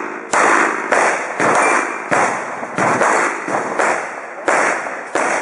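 Handgun fired in quick succession at steel targets: about eight sharp shots, spaced half a second to a second apart, each trailing off in a long echo.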